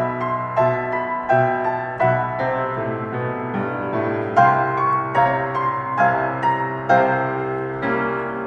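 Piano playing a slow, gentle instrumental passage of a hymn accompaniment, with notes and chords struck about every half-second to second and left to ring.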